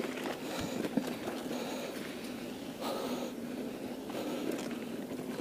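Mountain bike rolling fast down a dirt singletrack: steady tyre and wind noise, with a sharp knock from the bike about a second in.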